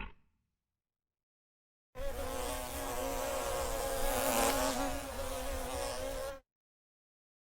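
A flying insect buzzing steadily, its pitch wavering slightly. It starts about two seconds in and cuts off about four seconds later.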